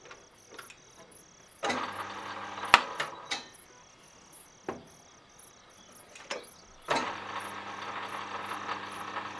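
Metal lathe motor running with a steady hum, briefly about two seconds in and again from about seven seconds in as the chuck spins the steel rod against the tailstock centre. Sharp metallic clanks come between the runs, the loudest about three seconds in. A cricket chirps about three times a second underneath.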